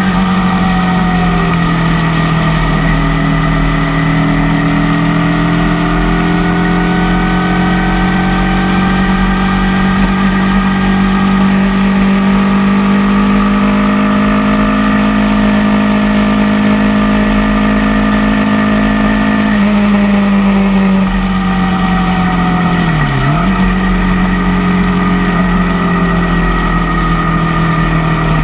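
Motorcycle engine running at a steady cruise under a rush of wind and road noise. Its pitch drifts slowly and dips sharply for a moment about 23 seconds in before coming back.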